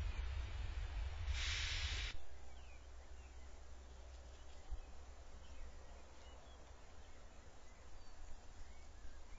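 Outdoor ambience: a low rumble, with a brief hiss about a second and a half in, both stopping about two seconds in. A quieter background follows, with faint bird chirps.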